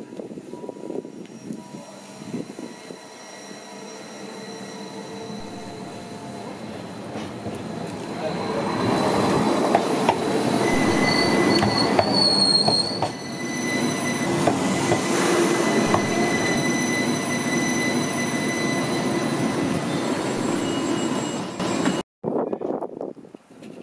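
Rhaetian Railway passenger train on the Bernina line approaching and passing close by, its wheels squealing in thin, steady high tones over a rumble that grows louder and peaks about ten seconds in. The sound cuts off abruptly near the end.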